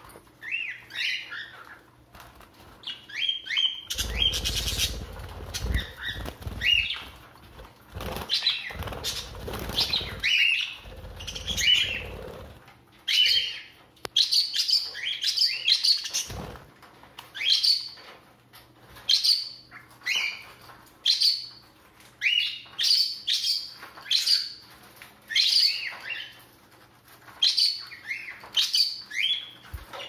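Budgerigars chirping in short, repeated calls, one to two a second. From about four seconds in, several seconds of wing flapping sound under the chirps.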